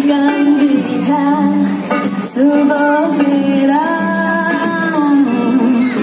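Live music through a concert PA: a woman singing a melody with long held notes, accompanied by acoustic and electric guitar.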